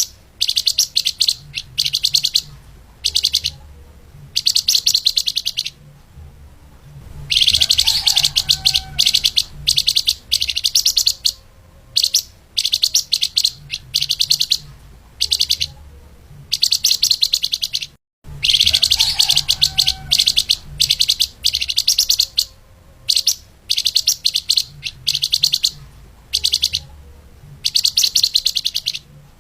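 Flamboyan (lemahan) songbird singing a fast, dense, high-pitched song: bursts of rapid chattering notes a second or two long, separated by short pauses. The sound cuts out for an instant about two-thirds of the way through.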